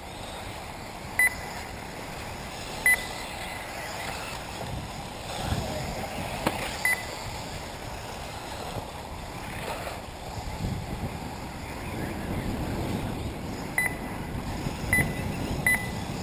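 Short high electronic beeps of a race lap-timing system, six of them spread through, over steady wind rumble on the microphone.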